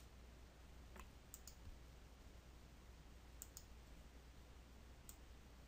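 Near silence with a few faint, sparse clicks of a computer mouse and keyboard being used.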